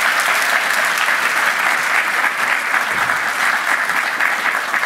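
Audience applauding, a steady dense sound of many hands clapping.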